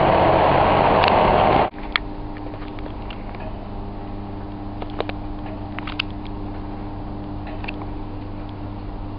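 Loud, even rumble of a train heard from inside the carriage, cut off abruptly after under two seconds. A steady low hum with a few held tones follows, with several faint clicks.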